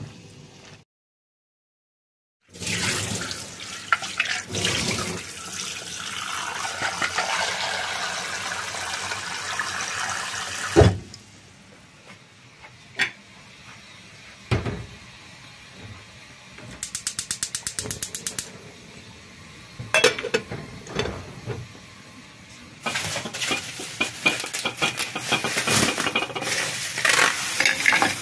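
Tap water running steadily for about eight seconds, then quieter kitchen handling with scattered knocks and a rapid run of clicks from a gas stove's burner igniter. Over the last few seconds a plastic bag crinkles as it is handled.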